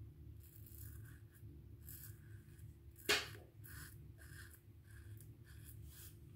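Merkur Futur safety razor scraping through lathered stubble in a run of short, crisp strokes, with one sharp knock about three seconds in.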